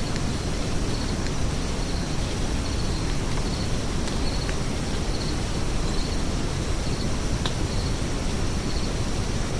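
Steady low rumbling outdoor noise, with a cricket chirping faintly and evenly, about once every two-thirds of a second.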